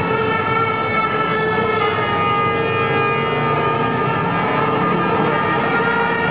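Continuous din of a large street protest crowd, with many horns sounding steady, held tones at several pitches all at once.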